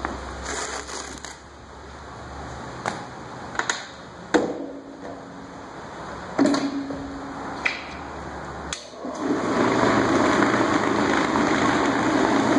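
A few scattered knocks and clatters, then about nine seconds in a floor-cleaning brush machine's motor starts and runs steadily, working a microfiber pad over wet stone tile to absorb the cleaning solution.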